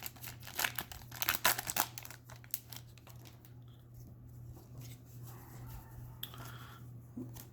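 Foil booster-pack wrapper crinkling and tearing as trading cards are handled, densest in the first two seconds and then fainter and sparser. A steady low hum runs underneath.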